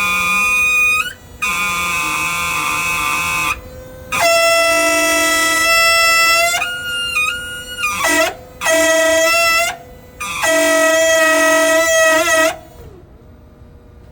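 Loud, pitched, horn-like screeching in about six stretches of one to two and a half seconds each. Each stretch holds one steady pitch, the pitch jumping between stretches. The screeching stops near the end, leaving a faint steady hum.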